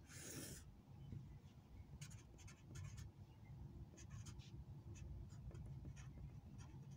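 Sharpie felt-tip marker writing on a sheet of paper, faint: one longer scratchy stroke right at the start, then a run of short strokes as letters are written.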